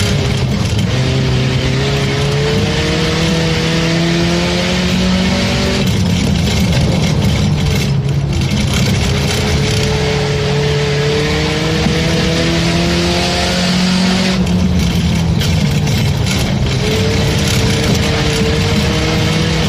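Race car engine running hard at race pace. Its pitch climbs for several seconds, then drops back, three times over, under heavy wind and tyre noise.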